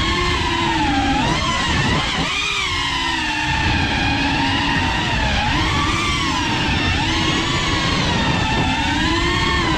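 FPV quadcopter's electric motors and propellers whining, the pitch dipping and rising again several times with throttle changes, over a low rumble.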